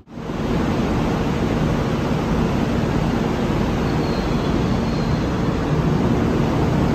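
Steady noise of a train and station platform, a continuous rumbling hiss that fades in at the start, with a faint high tone about four seconds in.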